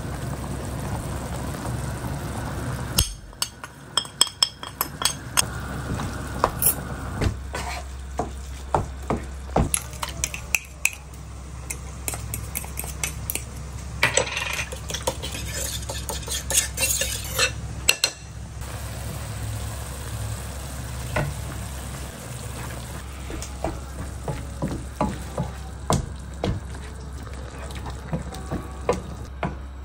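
Minced meat frying in a pan and being stirred. In the middle, a spoon clinks and scrapes against a small bowl as tomato paste is mixed into water.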